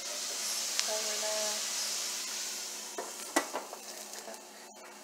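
Broccoli sizzling in a hot nonstick frying pan, a steady hiss that slowly fades. A few sharp knocks on the pan come about three seconds in.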